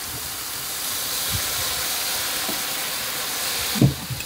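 Water hitting a hot electric skillet of clams, tomatoes and scallions in olive oil, with a steady hiss and sizzle of steam. A brief thump comes near the end.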